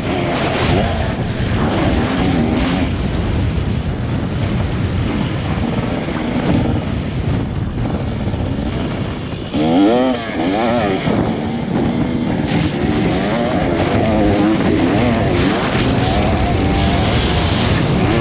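Motocross dirt bike engine revving up and down as the bike is ridden around a dirt track, with wind and ground noise from the onboard camera. About ten seconds in the engine briefly drops off, then bursts into quick, sharp revving.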